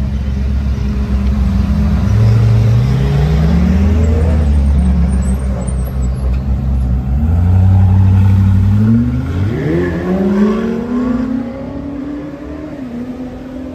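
Hypercar engines accelerating, their pitch climbing in several rises. The loudest stretch is just before the middle, and the sound then fades as the cars move off.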